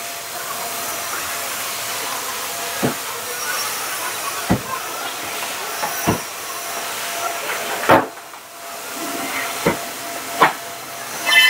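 Plastic push clips being pressed into the underside of a car bonnet to fix a felt hood insulation liner: about six short sharp clicks spaced a second or two apart, the loudest about two-thirds of the way through, over a steady hiss.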